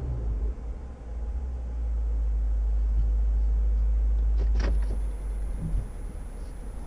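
2016 Lexus GS F's naturally aspirated 5.0-litre V8 idling, a deep low sound that grows louder for about three seconds in the middle. A single sharp click about four and a half seconds in.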